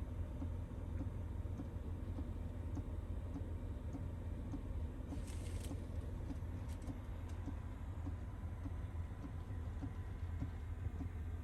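Kerosene FF heater running: a steady low hum from its fan and burner, with a faint regular ticking from its fuel pump. A brief hiss about five seconds in.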